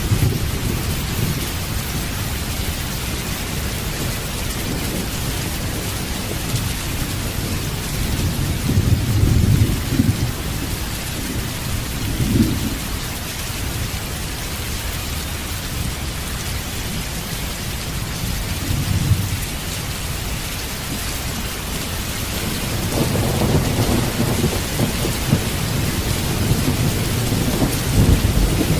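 Steady heavy rain with low rolling thunder rumbles that swell about a third of the way in, briefly twice more, and build again over the last few seconds.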